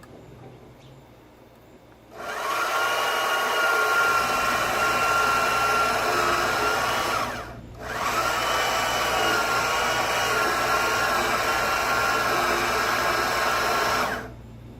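Bauer portable band saw cutting through two stacked 2x4s, about three inches of lumber, with a steady whine. It starts about two seconds in, runs for about five seconds, cuts out briefly, then runs again for about six seconds and stops.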